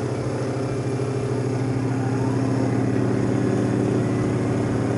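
Sherline CNC milling machine climb milling an aluminium plate. The spindle and motors give a steady hum, with the end mill's cutting noise over it.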